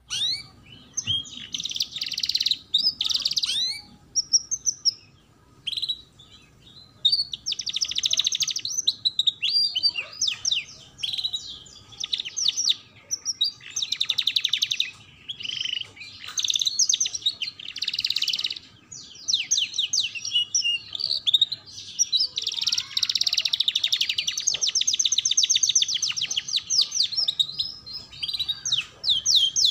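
Domestic canary singing in long phrases of fast trills and rapid repeated chirps, with short pauses between phrases.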